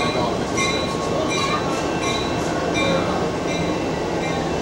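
A railway warning bell dings in a steady rhythm, about three strikes every two seconds, over the continuous rumble of trains at the station.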